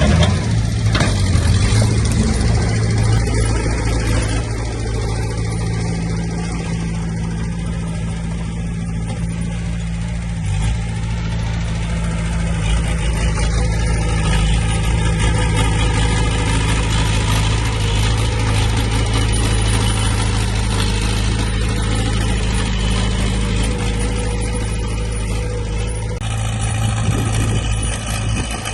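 Diesel engine of heavy earthmoving equipment running steadily at a low, even speed.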